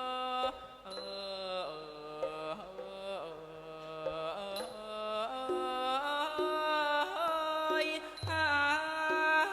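Thai classical piphat ensemble music: a sustained melody of long held notes that slide and bend in pitch, over the ensemble's quieter struck notes.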